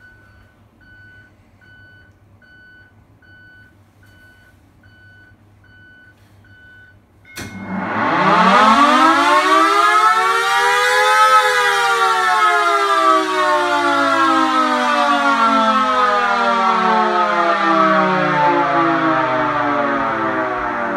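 Air raid siren started with a click about seven seconds in, winding up to full pitch in about four seconds and then winding slowly down for the rest of the time. Before it starts, a faint high beep repeats about one and a half times a second.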